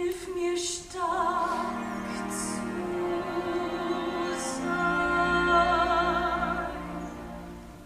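A soprano singing a slow phrase in German with a wide vibrato over a soft, sustained orchestral accompaniment, fading near the end.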